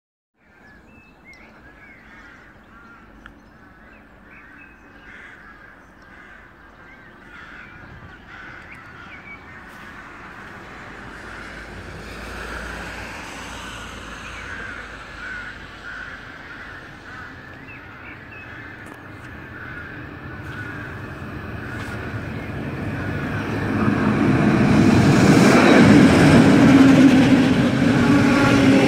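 A regional double-deck push-pull train approaching and pulling into the station, its rumble growing steadily louder until it runs loud and close alongside the platform in the last few seconds. Birds call over the faint early part.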